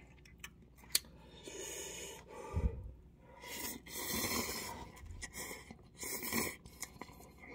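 A person slurping instant ramyeon noodles from a cup with wooden chopsticks: three long, airy slurps.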